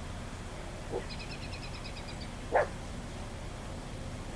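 A dog barks once, sharply, about two and a half seconds in, after a fainter yip about a second in. A rapid run of evenly spaced high chirping notes, like a bird's trill, comes between them, over a steady low background rumble.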